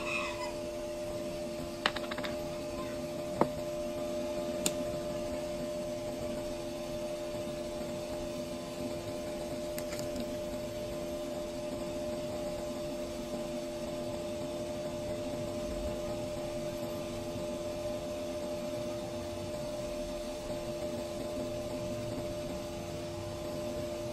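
Steady electrical hum with a whirring noise underneath, from running workbench equipment. A few sharp clicks in the first five seconds as a plastic solder-paste jar is opened.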